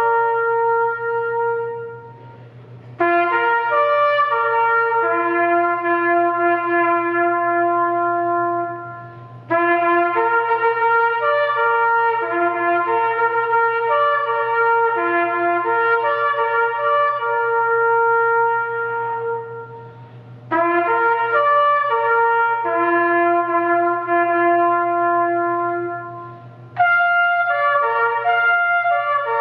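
Trumpet playing a slow melody in long held notes, in phrases with short breaks between them.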